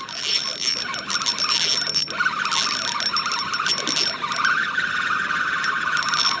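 Spinning fishing reel being cranked to reel in a hooked fish: a high whine that stops and starts as the handle turns, over a steady rushing noise.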